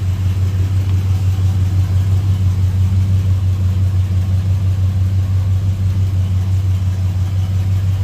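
Box Chevy's engine idling: a steady, even low drone that neither rises nor falls.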